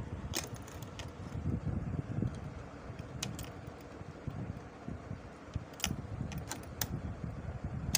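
Scattered sharp metal clicks and taps, about eight of them, as a blind stitch presser foot is handled and fitted onto the presser bar of a Janome Secio sewing machine, over a low rumbling noise.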